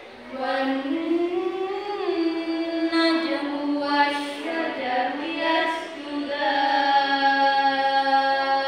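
A single voice reciting the Qur'an in a melodic chanted style, with gliding ornamented phrases and long held vowels, the longest held from about six seconds in.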